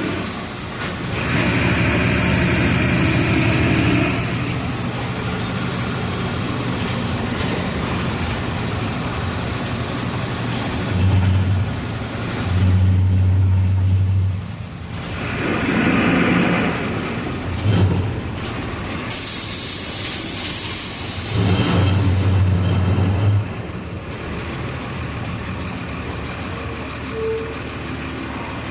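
Volksbus 17-230 EOD bus diesel engine running and pulling harder in several surges of a few seconds each. A burst of air-brake hiss comes about two-thirds of the way in, and a short high beep sounds near the start.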